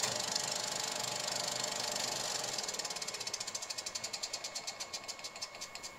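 Rapid, even mechanical clicking that slows into separate clicks and fades away over the last few seconds.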